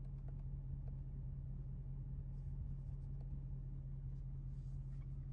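Ford 6.7L Power Stroke V8 turbo-diesel idling, heard from inside the cab as a steady low hum. A few faint clicks sound over it, matching steering-wheel buttons being pressed to cycle the dash display.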